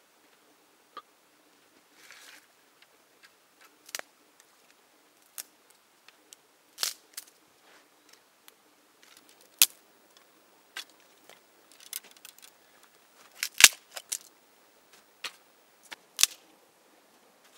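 Sharp snaps and knocks of dry sticks and branches being handled and broken, a dozen or so at irregular intervals, the loudest about two-thirds of the way through.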